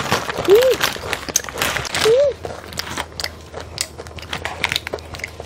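Crisp corn nacho chips being bitten and chewed, a dense run of sharp crunching crackles. Twice a short rising-and-falling hummed 'mm' sounds through the chewing.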